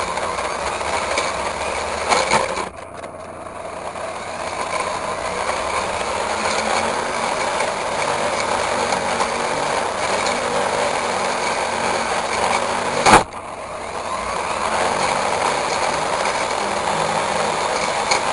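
Petrol brush cutter running under load as its blade cuts weeds and grass. The sound drops off sharply twice, about three seconds in and again about two-thirds of the way through, each time right after a short sharp crack, then climbs back up to full speed.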